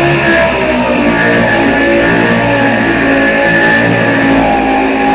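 Loud background music led by guitar, with many short notes changing over a steady low hum.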